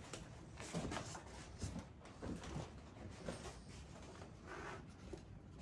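Faint footsteps with irregular soft knocks and creaks on the attic's wooden floor, a few a second at most.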